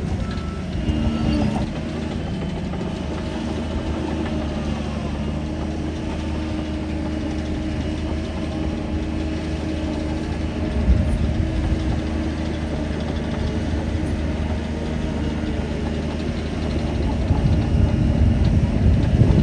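Shantui DH17 bulldozer's diesel engine running steadily under work. It grows louder briefly about eleven seconds in and again near the end.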